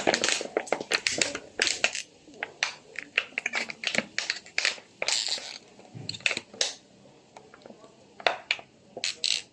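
Plastic water bottle crinkling and crackling in irregular bursts as it is squeezed while someone chugs from it.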